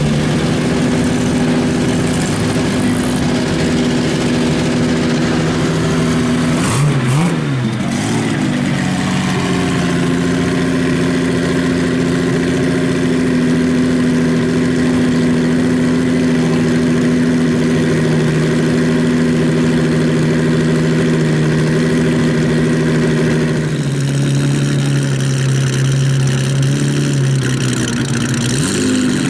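Pre-war racing car engines running: a quick blip of revs rising and falling about seven seconds in, then an Amilcar C6's 1100 cc six-cylinder idling steadily. Its note drops lower about twenty-four seconds in, and the revs rise again at the very end.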